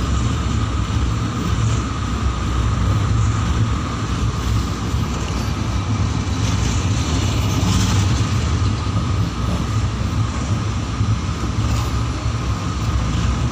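Passenger train running steadily, heard at an open carriage window: a continuous rumble of the wheels on the rails with rushing air, and a thin steady whine above it.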